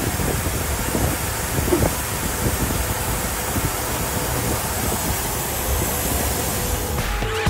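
Steady rushing hiss with a low rumble beneath it.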